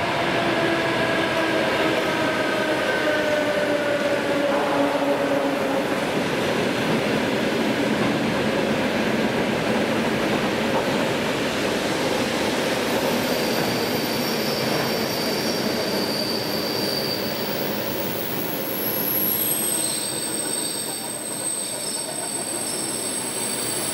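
ED4M DC electric multiple unit arriving and rolling past at platform level. A whine with several pitches falls over the first few seconds as the train slows, under a steady rumble of cars and wheels. From about halfway through, high-pitched squeals join in as it brakes toward a stop.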